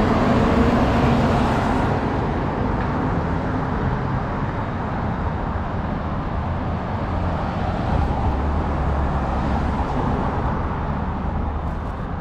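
City street traffic: a steady wash of car engines and tyre noise with a low rumble, slightly louder in the first couple of seconds.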